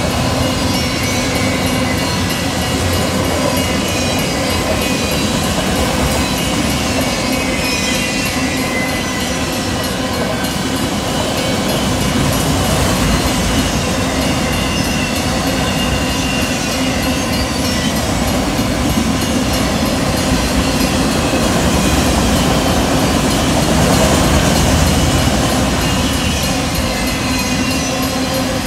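Freight train of autorack cars rolling past at speed: a steady rumble of steel wheels on rail, with a high wavering wheel squeal over it, swelling slightly near the end.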